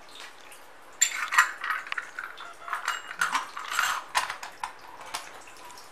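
Stainless steel murukku press being screwed shut by hand, its threaded lid and plunger rod turning. Starting about a second in, it gives a run of irregular metallic clicks and scrapes that lasts about four seconds.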